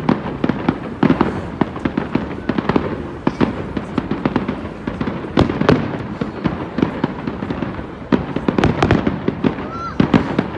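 Fireworks display going off in a dense, continuous run of bangs and crackles, with a brief rising whistle near the end.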